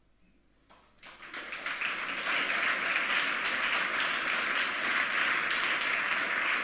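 Audience applauding at the end of a talk: after about a second of quiet the clapping starts, swells within a second and keeps up steadily.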